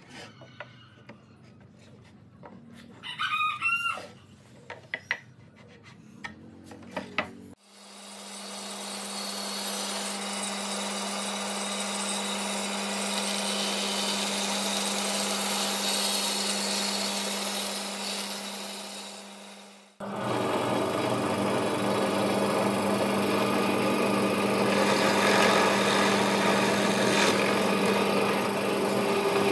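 Light knocks of wooden parts being handled, with a rooster crowing about three seconds in. A bandsaw then runs and cuts pine for about twelve seconds, spinning down near twenty seconds. After that a drill press bores into a pine board, running steadily to the end.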